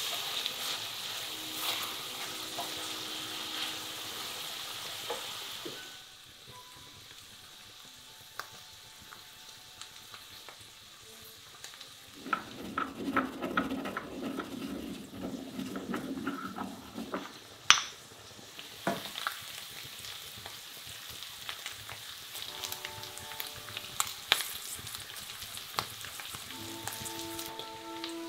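Minced meat and almonds sizzling in a stainless steel pot, stirred with a wooden spoon. About halfway through, a stone mortar and pestle grinds allspice with a low, rough scraping and knocks. The sizzling comes back after that, with faint background music coming in near the end.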